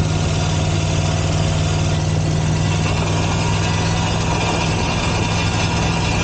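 Moto Guzzi V85 TT's air-cooled V-twin running steadily at idle, with a horrible vibrating noise over it from an exhaust header cover left half loose by a backed-out screw.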